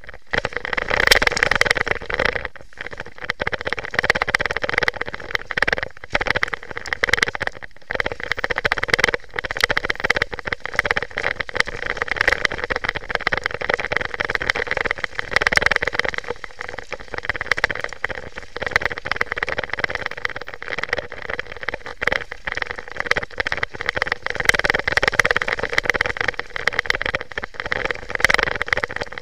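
Specialized downhill mountain bike ridden fast down a dirt trail: a steady rush of wind and tyre noise over the ground, broken by frequent clatters and knocks as the bike hits bumps. Wind on the microphone dominates.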